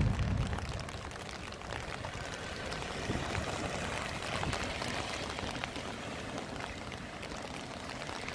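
Car tyres hissing over a rain-soaked road with rain around, loudest right at the start as a car passes close by, then a steady wet hiss.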